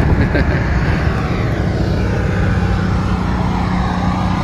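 A steady, loud, low engine drone whose higher tones slowly sweep down and up.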